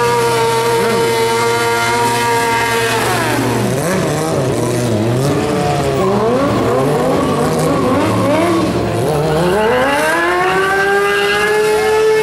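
Motorcycle engine held at high steady revs during a burnout, rear tyre spinning on the pavement. About three seconds in the revs drop sharply and waver up and down for several seconds, then climb back to a high steady rev near the end.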